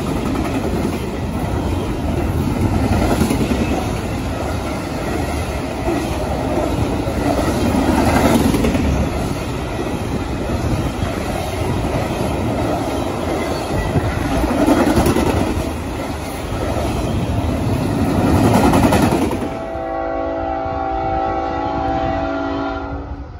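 A CSX intermodal train's double-stack well cars and trailer cars passing close by: a steady loud rumble with wheel-on-rail clatter. About twenty seconds in this gives way to the multi-note chord of a locomotive horn, sounded by a second train approaching from far off and held for about three seconds.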